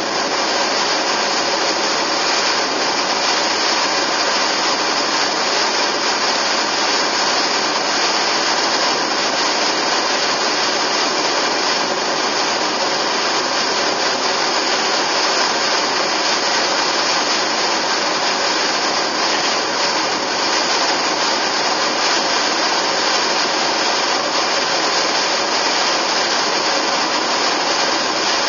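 Steady road and wind noise of a car driving at speed, an even hiss with little low rumble and no change in level.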